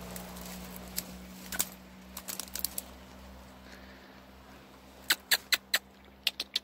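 Sharp clicks, a few single ones at first, then two quick runs of four or five clicks about five a second in the second half.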